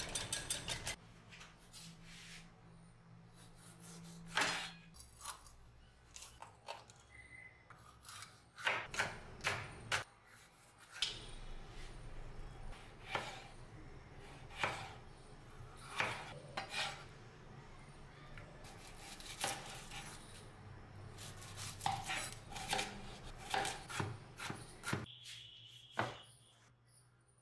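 Kitchen knife chopping vegetables on a wooden cutting board: sharp chops in quick runs of several strokes, with pauses between.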